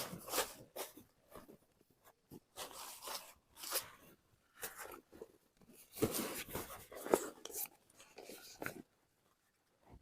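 Irregular rustling, crinkling and scraping as camping gear is handled and unpacked, in short bursts with pauses between them.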